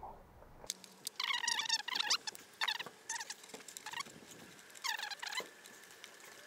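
Electrical tape being pulled off the roll for wrapping wiring joints, squealing in a few short screeches, the longest a little over a second in and another about five seconds in.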